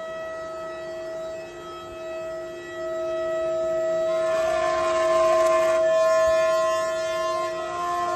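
Electric spindle of a 4-axis CNC wood router running with a steady high-pitched whine of several tones. A louder hiss joins it for about two seconds midway.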